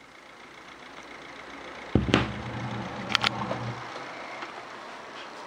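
CSR automatic turntable running its end-of-play cycle: a thump about two seconds in as the mechanism engages, a low mechanical hum while the tonearm lifts and returns, and a few sharp clicks as it settles, with the hum stopping near four seconds.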